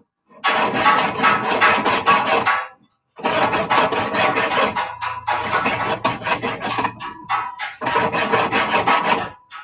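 A file rasping on steel in rapid strokes, in three spells with short pauses between them.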